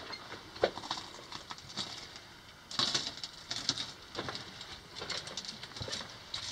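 Footsteps crunching and scuffing on loose rock and gravel along a mine tunnel floor, in irregular steps with small clicks.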